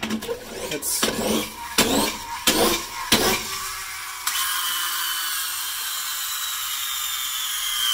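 Tonka Clutch Popper toy car with a flywheel friction motor: first the steel car rattles across a wooden bench with a few sharp knocks. Then, about four seconds in, comes a steady high whine from its freely spinning flywheel, the pitch just beginning to fall near the end.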